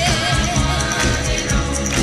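1960s girl-group pop song: a woman's lead vocal with vibrato over a full backing band, strong bass and a steady beat.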